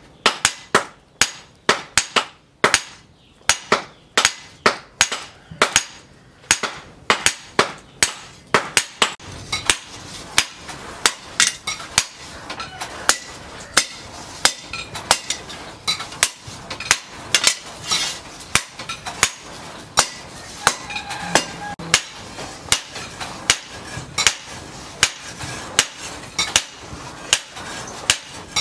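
Steady hand-hammer blows on a red-hot steel knife blade, cut from a tractor disc plough, lying on a steel post anvil. The strikes are sharp, about two a second.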